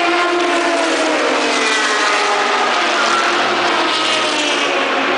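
Race car engines running loud and steady, several at once, their pitch sliding down about a second in and rising again later as cars pass.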